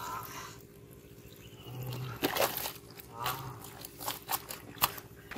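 Carp flapping in a plastic basin of shallow water, with several sharp wet slaps and splashes against the plastic.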